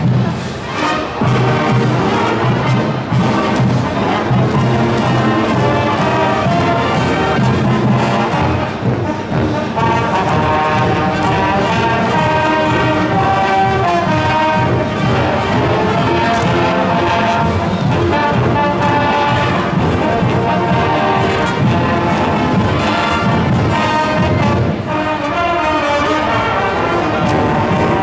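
University of South Dakota marching band playing a brass tune over a steady drumbeat.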